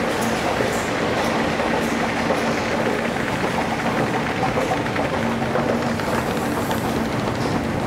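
Metro station escalator running: a steady mechanical rumble and clatter with a faint steady hum underneath.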